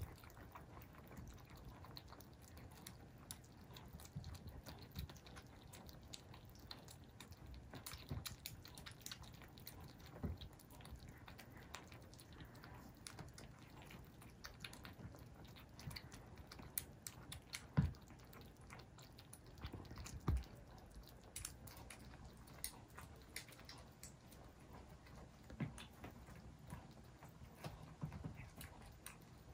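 A litter of Scottish Fold and Scottish Straight kittens eating together from one plate: faint, irregular chewing and lapping clicks throughout, with two louder knocks about 18 and 20 seconds in.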